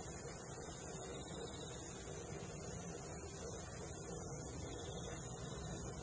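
Steady background noise: a high hiss over a low rumble, with two faint brief trills, about a second in and again near five seconds.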